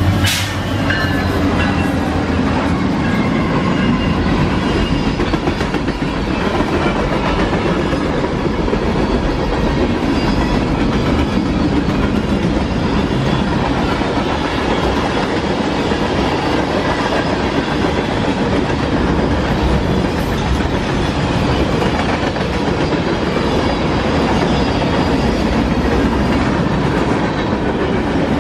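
Norfolk Southern freight train's cars rolling past, a loud steady rumble with wheels clacking over rail joints. A single sharp bang sounds right at the start.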